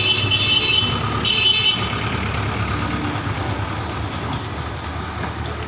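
Tractor engine running steadily as it drives slowly by, with a horn sounding twice near the start, a longer honk and then a shorter one.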